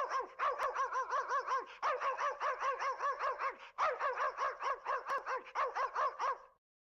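Dog barking rapidly, about five short barks a second, in three quick runs with brief breaks between them, stopping shortly before the end.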